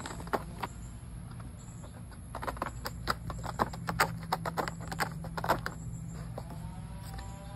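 Cat working at a corrugated cardboard scratcher: a quick, irregular run of scratchy clicks and rasps on the cardboard, a few near the start and a dense burst through the middle.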